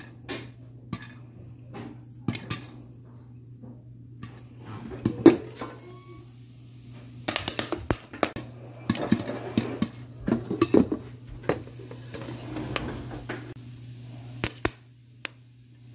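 Popcorn kernels popping now and then in a lidded metal pan, sharp scattered pops, mixed with metal clatter of the pan and lid being handled. A single louder knock comes about five seconds in, and the clatter is thickest in the middle.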